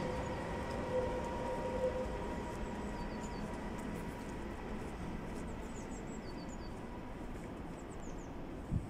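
Electric commuter train moving away across the yard, its steady rumble and faint whine fading within the first couple of seconds into a steady background noise. Small birds chirp from about three seconds in.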